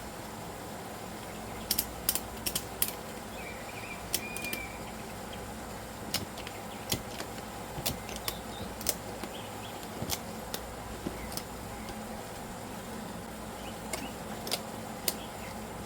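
Sharp metallic clicks, singly and in short clusters at uneven intervals, over a steady low hum: a ratchet strap being worked and cranked tight around a lawnmower tire to squeeze the bead toward the rim.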